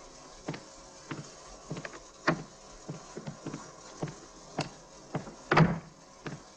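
Steady, evenly spaced ticking or tapping, a little under two strokes a second, with one louder knock about five and a half seconds in.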